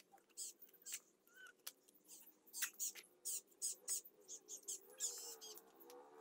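Small trowel scraping and scooping wet mud mortar in a metal pan: a run of short, faint scrapes.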